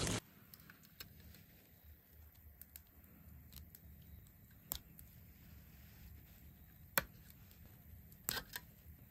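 Quiet handling sounds as a bamboo skewer is worked lengthwise through a rainbow trout over an aluminium tray: a few faint clicks and taps, the sharpest about seven seconds in and a short cluster just after eight seconds, over a low steady hum.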